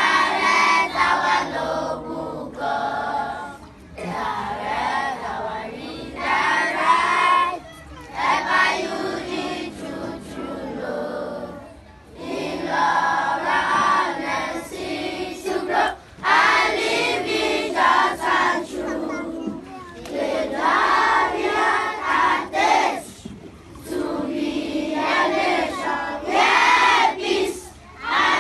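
A group of children's voices singing and chanting together in loud phrases of a few seconds, with short breaks between them.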